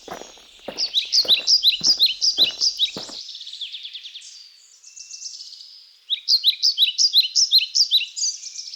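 A bird singing runs of quick, high, falling chirps, repeated in two bursts. Footsteps on a dirt trail go about two a second and stop about three seconds in.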